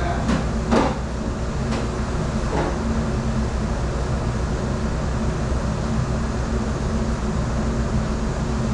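Steady drone of commercial kitchen machinery, with a low hum, and a few brief clatters in the first few seconds.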